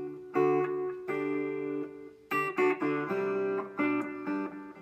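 Gibson Les Paul Studio electric guitar played through a Vox amp with a preamp pedal switched on: a run of about seven strummed chords, each left to ring briefly before the next.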